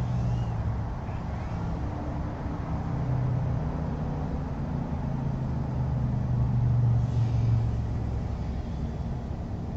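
Portable generator running with a steady low hum.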